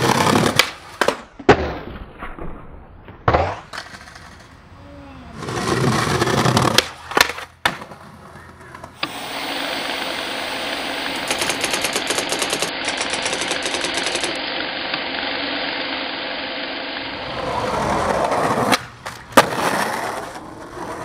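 Skateboard wheels rolling on concrete and brick, with sharp cracks of the tail popping and the board landing. Midway, a steady hiss runs for several seconds before the skating sounds return.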